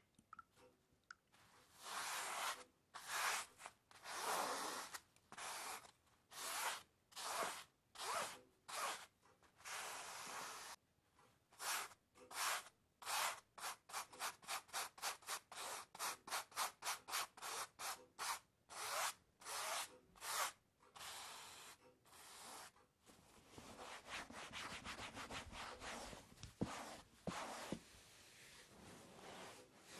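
Dry rubbing strokes against a rough surface, like scrubbing or sanding. At first they come as separate strokes, then faster, up to about three a second. From about two-thirds of the way in they merge into a denser, continuous rubbing.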